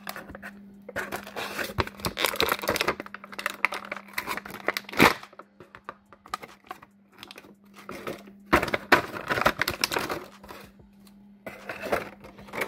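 Clear plastic action-figure packaging crinkling as it is handled and pulled apart, in irregular bursts with a sharp snap about five seconds in.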